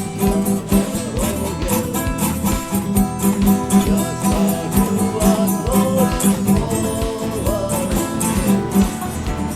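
Guitar music strummed in a steady rhythm, with a voice singing a melody over it.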